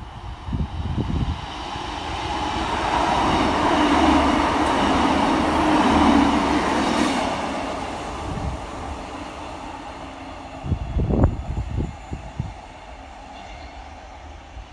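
Class 150 Sprinter diesel multiple unit passing through: its underfloor diesel engine noise and wheel-on-rail rumble swell to a peak a few seconds in, then fade as it draws away. A short cluster of knocks comes near the end.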